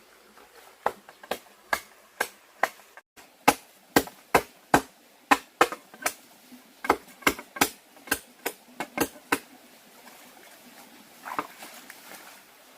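Repeated sharp blows of a hand tool striking wood: about twenty strikes at roughly two a second, with short pauses between runs, stopping after about nine seconds.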